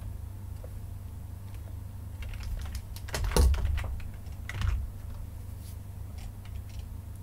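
Computer keyboard keystrokes: a few scattered clacks, with the loudest cluster about three seconds in and another a second later, over a steady low hum.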